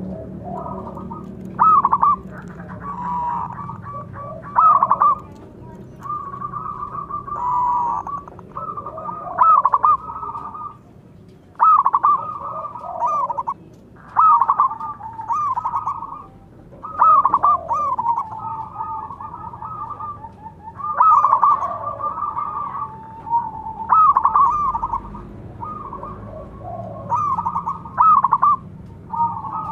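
Zebra doves (perkutut) cooing, call after call every second or two, the phrases overlapping as birds answer one another.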